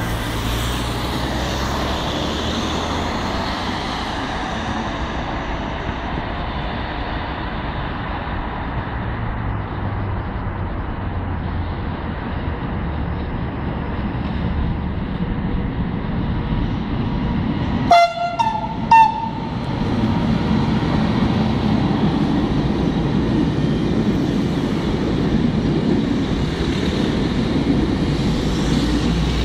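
Freight train passing behind a big FS 'Tigre' electric locomotive (E.652). The locomotive gives two short horn blasts about a second apart, the second on a higher note. The freight wagons then rumble past steadily and louder; road traffic is heard before the train arrives.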